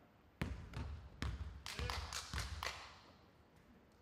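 Basketball bouncing on a wooden gymnasium floor, about eight sharp bounces over the first three seconds, as the ball is dribbled at the free-throw line.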